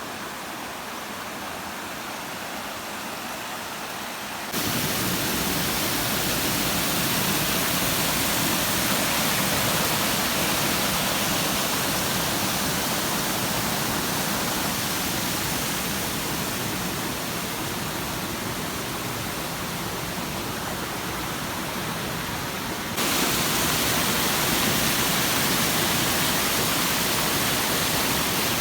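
Waterfall: a steady, even rush of falling water that suddenly gets louder about four and a half seconds in, eases off slightly, then jumps louder again later on.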